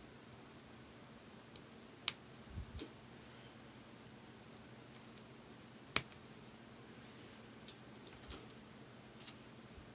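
Plastic building-block toy pieces handled and snapped together by hand: a few sharp plastic clicks, the loudest about two seconds in and about six seconds in, with soft knocks in between.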